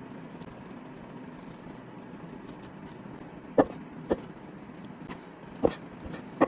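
Kitchen knife chopping on a cutting board: a few sharp, irregularly spaced knocks in the second half, over a steady low hiss.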